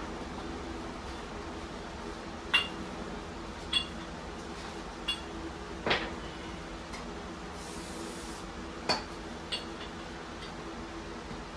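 Metal tools and parts clinking as they are picked through by hand, about six sharp, ringing clinks spread irregularly over the stretch, over a steady low hum.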